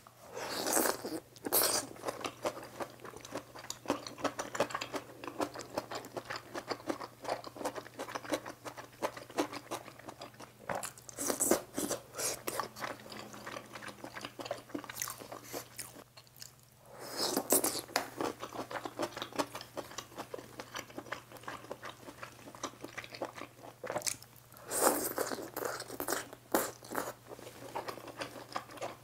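Close-miked eating of budae-jjigae with ramen noodles: four loud slurps of noodles spread through, with chewing and crunchy mouth noises between them.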